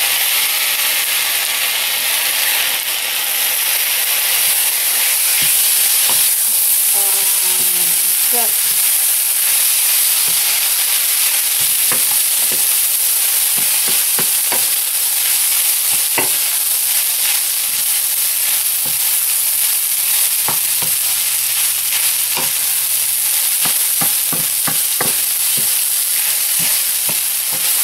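Natto fried rice sizzling in a hot pan as it is stir-fried, with a steady high hiss. A spatula scrapes and clicks against the pan at an irregular pace throughout, mixing the natto and its sauce into the rice.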